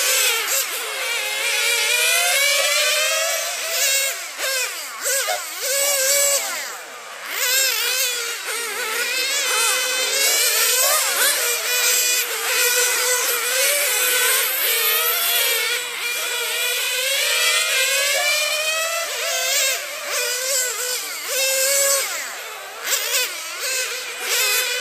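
Several radio-controlled racing cars lapping a track, their small motors giving a high-pitched buzz that rises and falls as they accelerate and slow for the corners, the cars overlapping and passing.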